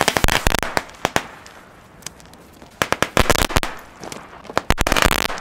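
Small 'Kalaschnikow 20' firework going off: rapid sharp cracks and bangs in several bursts, with hissing between them.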